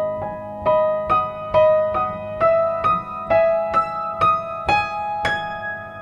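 Solo piano playing a gentle repeated figure of single struck notes, about two a second, edging upward in pitch. The figure ends near the close on a higher note that is left to ring.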